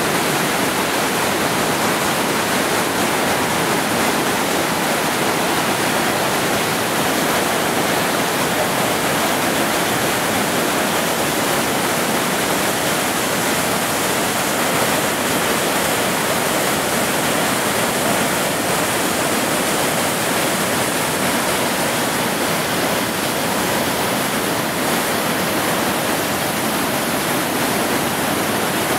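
Bridal Veil Falls at Niagara: a heavy waterfall pouring and crashing onto boulders, a loud, steady rush of water.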